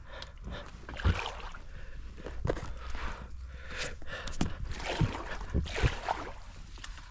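A paddle working a small boat down a shallow creek: irregular splashing strokes and knocks, about seven in all, the sharpest about a second in.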